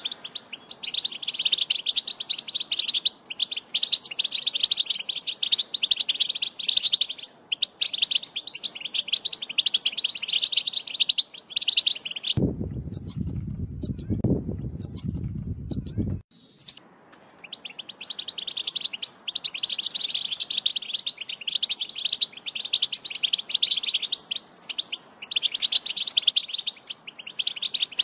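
European goldfinch song: a rapid, continuous twittering. About halfway through, the song breaks off for about four seconds while a low rumbling noise fills the gap, and then the twittering resumes.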